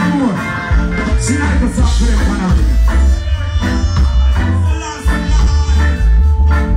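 Live reggae band playing through a PA, with a heavy bass line under the drums, guitar and keyboards. A voice on the microphone rises over the band for the first two seconds or so.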